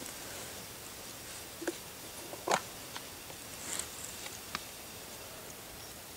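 Campfire embers under a skillet of heating oil, giving a few scattered crackles and pops over a faint steady background, the loudest pop about two and a half seconds in.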